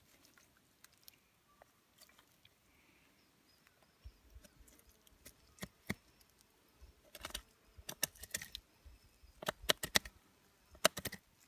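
Knife and bloody hands cutting the tenderloin free from inside a red deer carcass, with faint scattered clicks and crackles of blade and wet meat. These come in small clusters through the second half.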